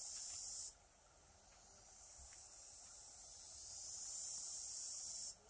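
Insect buzzing: a high, hissing drone that cuts off abruptly less than a second in, then swells up again over a few seconds, holds, and cuts off abruptly near the end.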